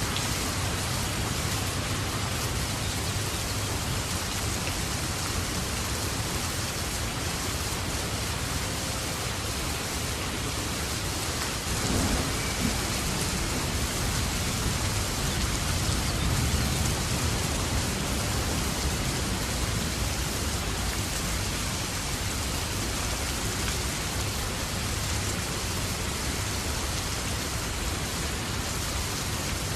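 Steady rain falling, an even hiss. About twelve seconds in a low rumble of thunder swells up and fades over several seconds.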